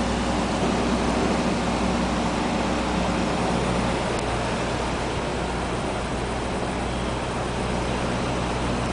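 Steady city street noise: an even hiss with a low engine hum from idling vehicles, the hum a little fainter after a few seconds.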